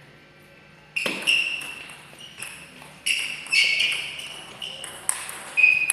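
A series of sharp, ringing knocks and clicks, irregularly spaced, starting about a second in.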